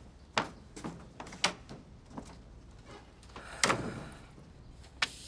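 A door handled and shut: a handful of short, sharp knocks and clatters, the loudest a little past halfway.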